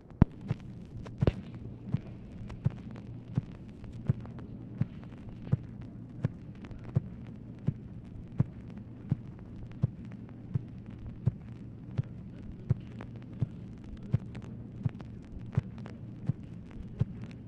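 Steady hum and hiss of a 1966 recorded telephone call, with a sharp click repeating evenly, about every 0.7 seconds.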